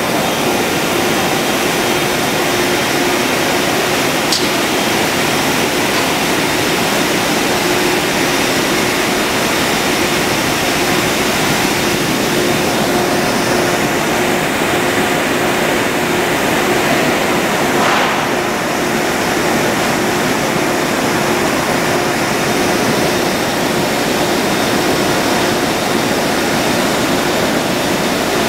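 Double twist bunching machine running at speed: a loud, steady rush of noise with a faint, even hum underneath.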